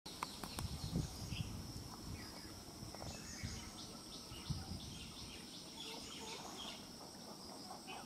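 Outdoor nature ambience: repeated short, falling chirps of small birds over a steady high insect drone, with a few low thumps in the first two seconds and again about four and a half seconds in.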